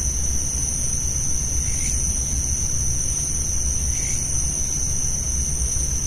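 Night insects chirring in a steady high-pitched drone, with a soft call repeating about every two seconds and a low rumble underneath.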